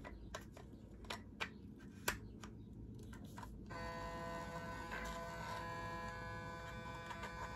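A few light plastic clicks as the facial cleansing brush is handled, then, about halfway through, its small motor switches on and buzzes steadily. It vibrates rather than spins, although the owner expected it to spin.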